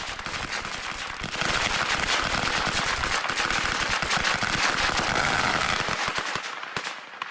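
Long roll of firecrackers going off in a rapid, continuous crackle of tightly packed bangs. It grows louder about a second in and thins out near the end.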